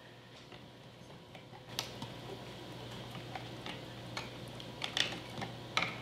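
Faint handling sounds of house wiring and a plastic connector being pulled down from a ceiling smoke-alarm mounting plate: a few soft clicks and rustles. A low steady hum comes in about two seconds in.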